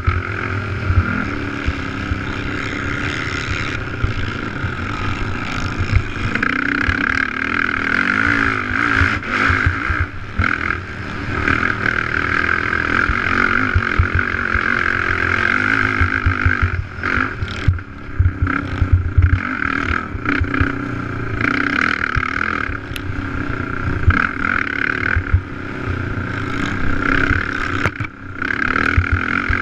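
Race ATV engine heard from on board, running hard under load. It swells and eases with the throttle and briefly drops off around the middle and near the end. Frequent low thumps from the rough dirt track come through the on-board microphone.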